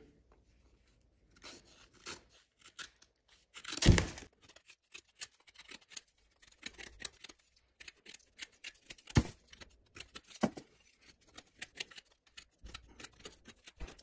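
WE Knives Upshot folding knife whittling a strip of pine 2x4: the blade shaves and splits the wood in irregular scraping cuts, with louder snaps about four seconds in and again around nine seconds.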